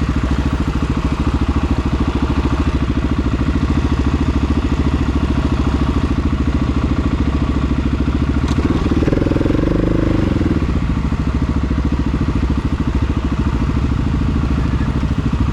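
Off-road vehicle engine running steadily under way, its note shifting briefly about nine seconds in.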